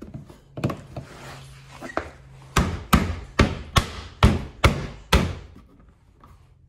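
Plastic fog light bezel being pushed and tapped into a Mk6 Volkswagen Jetta's front bumper by hand: a few light knocks, then, from about halfway through, a quick run of about seven sharp plastic knocks and snaps as its clips seat.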